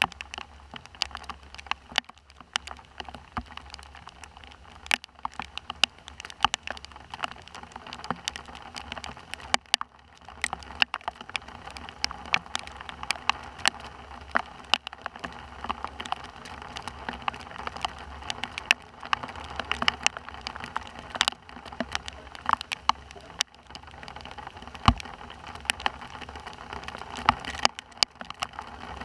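Rain falling steadily, with many irregular sharp taps of raindrops striking close by.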